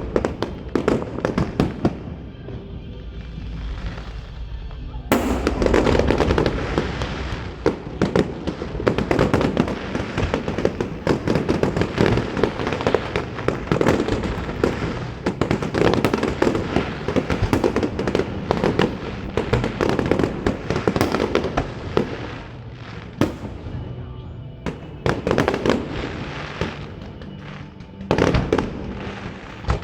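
Fireworks display: a dense barrage of aerial shell bursts and crackle. It thins out for a few seconds near the start, then a sudden heavy volley begins about five seconds in and carries on, easing briefly twice near the end.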